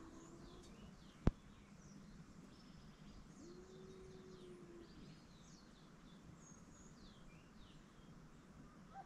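Faint outdoor birdsong: many short, quick chirps and whistles, with a low, steady tone held for about a second and a half at the start and again midway. A single sharp click about a second in is the loudest sound.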